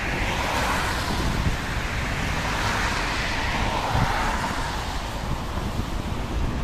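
Road traffic noise: passing cars' tyres and engines with wind on the microphone, swelling twice, about half a second in and again around three seconds.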